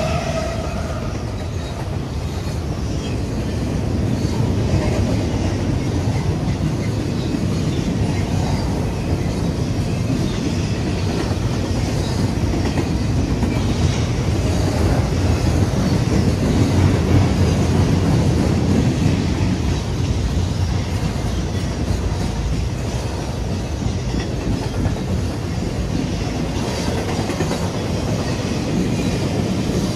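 Freight train cars rolling past close by: a steady rumble of steel wheels on the rails with clickety-clack over the rail joints, a little louder in the middle.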